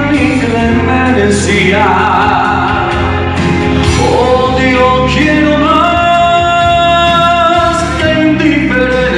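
Two men singing a romantic duet into handheld microphones over musical backing, holding long sustained notes about two-thirds of the way through.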